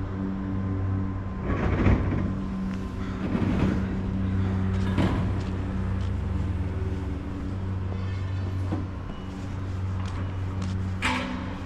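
A vehicle engine idling with a steady low hum, with a few short louder noises over it, the strongest near the end.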